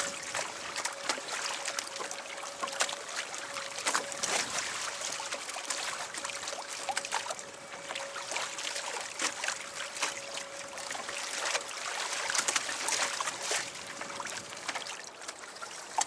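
Water splashing and trickling against the hull of a sailing kayak under way, with irregular small clicks and knocks. A faint steady whine runs under it and fades out near the end.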